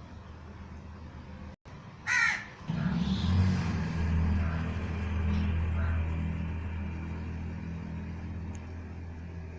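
A crow gives one loud, harsh caw about two seconds in. Just after it a steady low engine rumble starts and carries on, louder than the caw.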